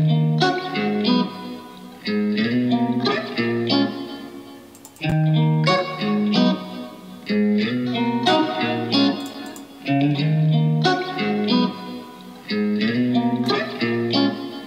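A looped guitar sample playing through a Core Compressor plugin, a melodic phrase of notes repeating about every five seconds. The listener hears the compressor adding a bit of crackling and some distortion.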